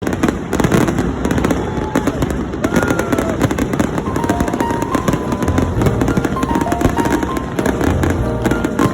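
Fireworks crackling and popping in rapid succession, over music with a short-note melody and a bass beat that comes in about five seconds in.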